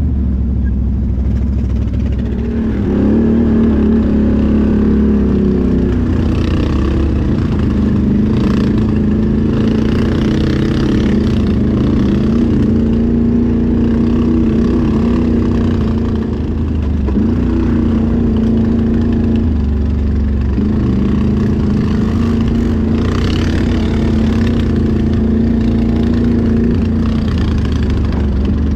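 Can-Am Outlander XMR 1000R's Rotax V-twin engine running steadily under throttle while riding. Its pitch steps up about three seconds in and dips briefly twice in the second half.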